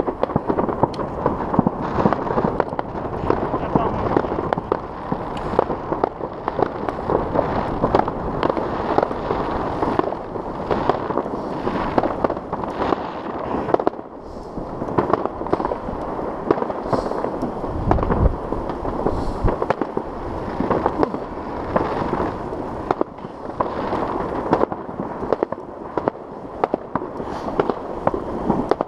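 New Year's fireworks salvos going off all over the city: a continuous crackle of many bangs and pops from near and far, with no break.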